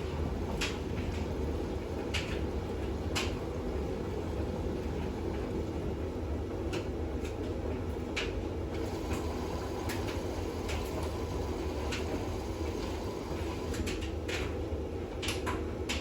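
Bosch WAX32GH1 washing machine in its final rinse with a full load: a steady low rumble of the drum turning, with scattered light clicks and knocks.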